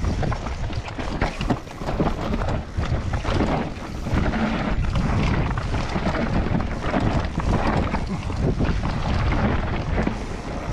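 Orange 324 downhill mountain bike riding a rough trail: wind buffeting the microphone over a constant rattle and clatter of tyres, chain and suspension, with many sharp knocks.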